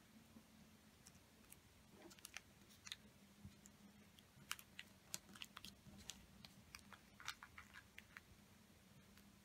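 Irregular crisp crackles and ticks of a small sheet of paper being folded and creased between the fingers, thickest from about two seconds in until near the end, over a faint steady hum.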